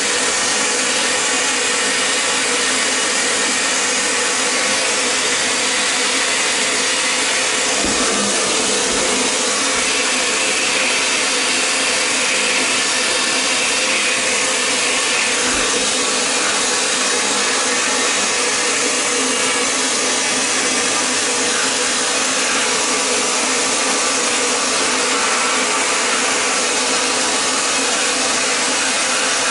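Vapor blasting gun spraying a jet of water and abrasive slurry driven by compressed air onto an aluminium motorcycle cylinder head inside a blast cabinet, a steady loud hiss as it strips carbon and old deposits.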